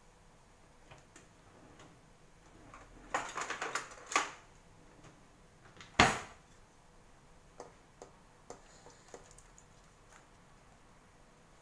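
Clicks and knocks of things being handled on a kitchen counter: a quick run of small clicks about three to four seconds in, one sharp knock about halfway through, then a few light ticks.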